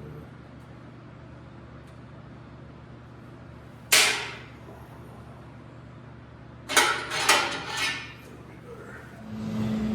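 A single sharp metal clank with a short ring about four seconds in, then a quick run of three or four clanks a little before eight seconds, steel parts being handled or struck. Near the end a steady machine hum starts up.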